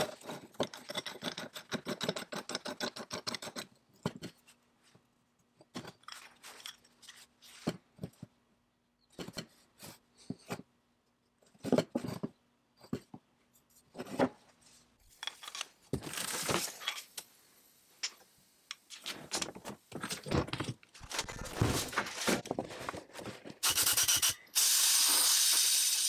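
Small metal clicks and clinks of the steel parts of an antique wrench being handled and taken apart, with a fast run of clicking at the start. Then a sandblasting cabinet blasting in hissing bursts, ending in a loud steady hiss of abrasive on metal.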